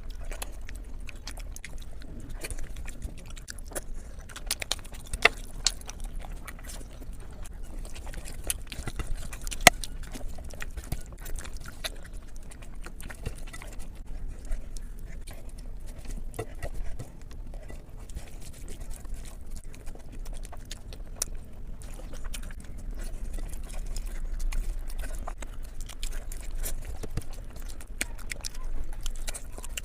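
Close-miked eating of biryani: chewing and mouth clicks, irregular and sharp, over a low steady hum.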